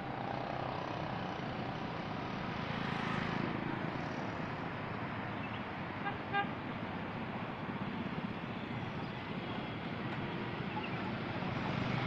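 Steady road traffic noise, with a short vehicle horn toot about six seconds in.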